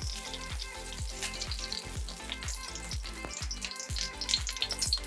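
Chicken pieces frying in hot oil, sizzling with a dense, steady crackle of small pops, under background music with a regular beat.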